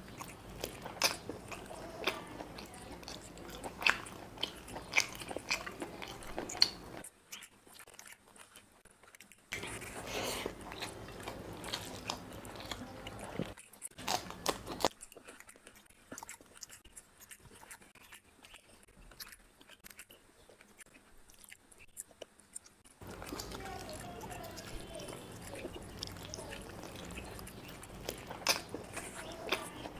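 Close-miked eating by hand: chewing and biting chicken curry and biryani, with wet mouth clicks, lip smacks and some crunchy bites. The sounds fall quieter for a few seconds twice, once about a quarter of the way in and again for several seconds around the middle.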